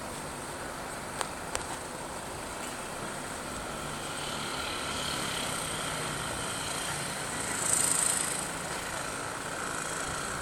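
Distant jet airliner engines running with a steady whine, getting a little louder from about four seconds in, with a brief high hiss near eight seconds.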